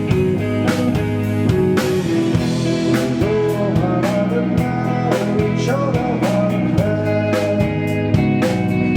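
Rock band playing live: electric guitars and bass over a drum kit keeping a steady beat.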